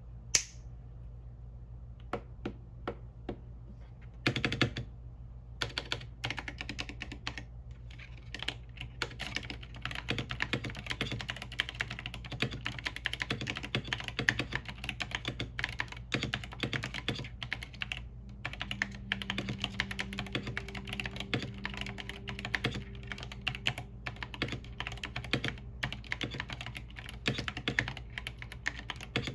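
Epomaker TH80 mechanical keyboard with Flamingo linear switches being typed on. There are a few single key presses at first, then steady, fast typing from about six seconds in.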